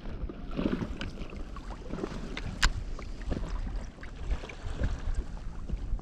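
Wind on the microphone and water around a fishing kayak, a steady low rumble, with scattered small clicks and knocks; the sharpest click comes about two and a half seconds in.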